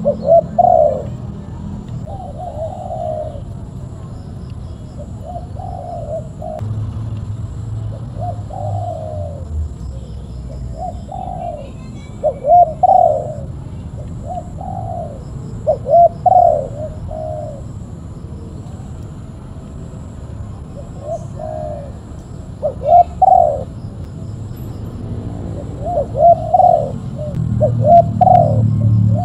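Spotted dove cooing: short phrases of a few low, rolling coos, repeated every couple of seconds.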